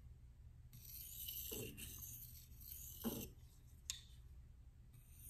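A steel knife blade stroked lightly across a resin-bonded diamond waterstone, making a soft, gritty scraping through the first three seconds. There are two brief low sounds about one and a half and three seconds in, and a sharp click near four seconds.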